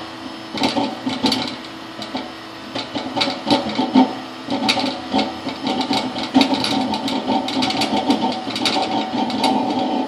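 Homemade drip-feed waste-oil heater burning with its blower running: a steady rush broken by irregular sputtering and crackling from the fire. The sputtering shows the oil feed and air are not yet balanced. The sound evens out in the second half as the oil flow is turned down.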